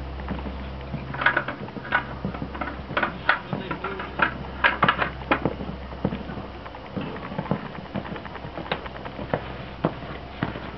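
Horse cantering on a sand arena: irregular soft hoofbeats and clicks, a few each second.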